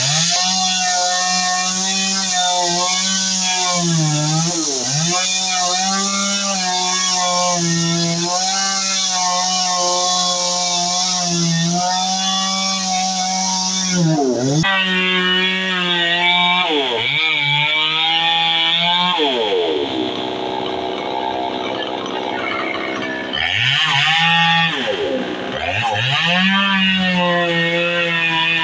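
Petrol chainsaw running at high revs, cutting into the base of a tree trunk. Its engine pitch drops sharply and climbs back up several times.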